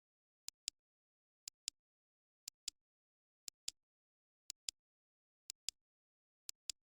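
Clock ticking once a second, each tick a pair of sharp clicks about a fifth of a second apart, the second one louder.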